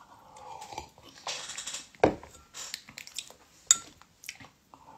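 Drinking from a plastic cup with a short sipping hiss, then a sharp knock about two seconds in, as of the cup or a dish set down, and a lighter click near the end.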